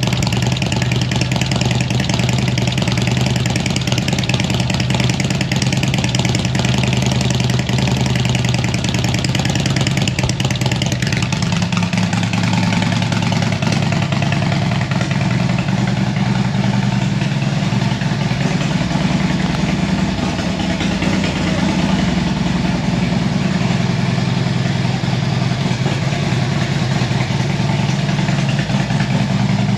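2007 Harley-Davidson CVO Screaming Eagle Road King's Twin Cam 110 V-twin idling steadily through Rinehart aftermarket exhaust.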